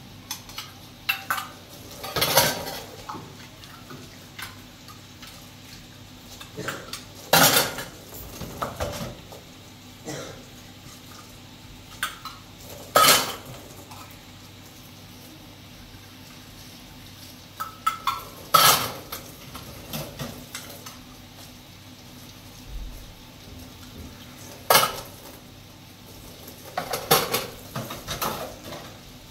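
Pots, pans and metal utensils clinking and clattering during kitchen work, with a sharp clank every few seconds.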